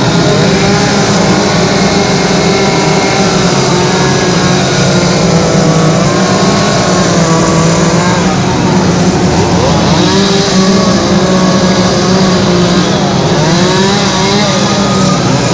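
Two-stroke chainsaw engines running continuously, their pitch rising and falling repeatedly as the throttle is worked while carving wood.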